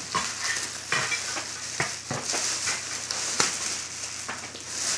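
Gift wrap and a plastic gift bag crinkling and rustling, with a run of sharp crackles and small tearing snaps as a present is pulled out and unwrapped.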